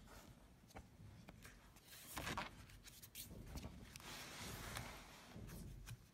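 Drawing strokes on paper: a pencil, conté or charcoal stick scratching and rubbing in short strokes, the loudest a stroke about two seconds in, with a longer stretch of shading around four to five seconds in.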